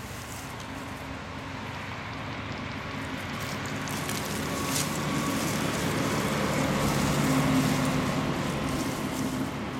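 Concrete mixer truck driving past on the road. Its engine grows steadily louder to a peak about three quarters of the way through, then begins to fade.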